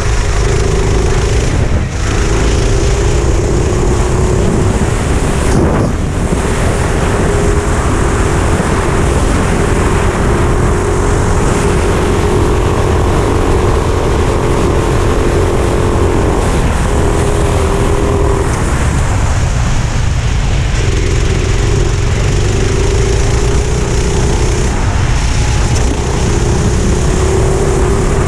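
Four-stroke kart engine running hard on track, its pitch dropping and climbing back several times as the throttle is lifted for corners and opened again. Heavy wind rumble on the helmet-mounted camera's microphone underlies it.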